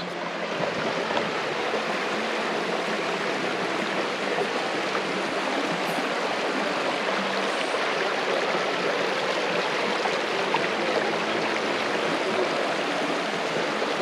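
Creek water running over rocks and small cascades into rock pools: a steady, even rushing of flowing water.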